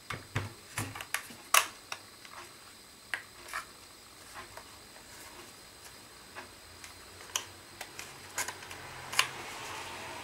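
Light clicks and taps of small airsoft rifle parts being handled on a tabletop: several in the first two seconds, a few more scattered afterwards, and a louder one near the end.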